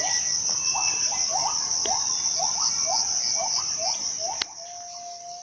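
Rainforest insects droning loudly and steadily at a high pitch, with a series of short rising whistled notes from another animal, about two to three a second, ending in one long held note near the end. A sharp click comes about four and a half seconds in, after which the background drops quieter.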